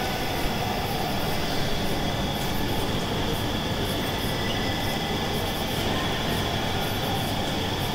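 Wide-width flexographic printing press running at speed: a continuous, steady machine drone of rollers and drives, with a thin high whine held throughout.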